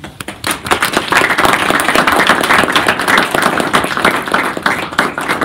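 Audience applauding: many hands clapping in a dense patter that starts just after the opening and stays loud.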